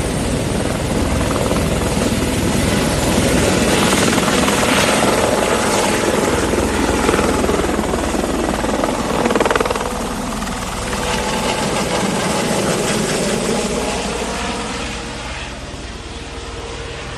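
Helicopter taking off: rotor and turbine engine running loud, then growing fainter in the second half as it moves off.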